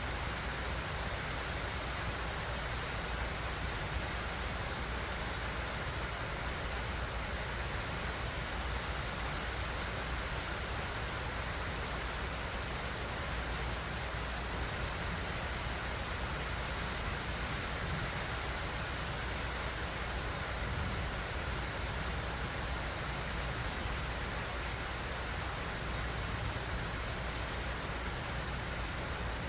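Heavy rain falling in a steady downpour: an even, unbroken hiss with a low rumble underneath.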